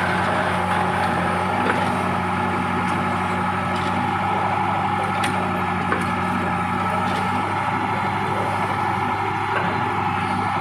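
Case 580 backhoe loader's diesel engine running steadily under work, with a few short sharp knocks and cracks as the bucket digs out a pile.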